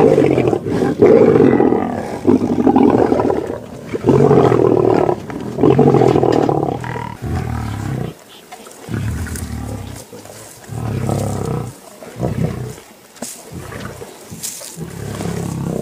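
Lions growling while feeding together on a kill: a run of loud growls about a second long, one after another for the first seven seconds or so, then quieter, shorter growls with gaps between them.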